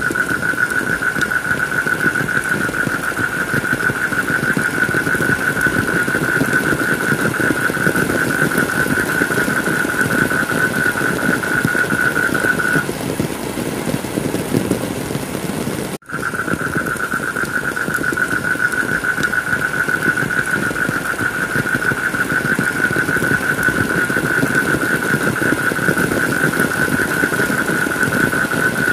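Steady heavy-rain noise with a continuous high-pitched whine over it. The whine stops about 13 seconds in. The sound cuts out for an instant about 16 seconds in, at a splice in the track, then the rain and the whine resume.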